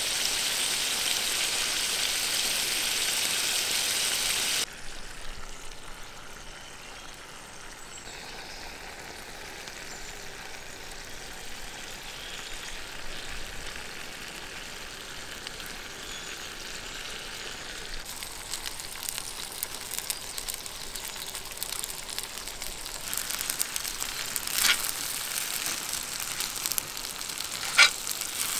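Seafood sizzling in a cast iron skillet over a wood fire: a loud steady hiss that drops off abruptly about five seconds in. After that comes quieter sizzling that slowly builds as spaghetti is added and tossed with metal tongs, with a couple of sharp clicks of the tongs against the pan near the end.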